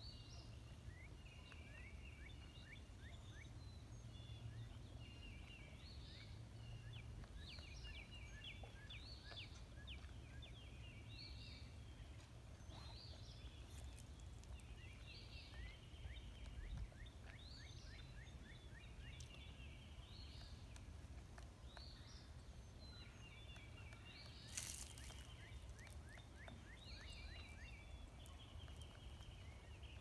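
Faint outdoor quiet in which a songbird keeps repeating a short, quick trilling phrase every two or three seconds. One short sharp knock sounds near the end.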